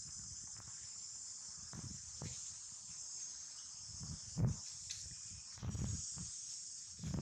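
Steady high-pitched insect chorus, with a few soft low thumps and rustles, the loudest about four and a half seconds in.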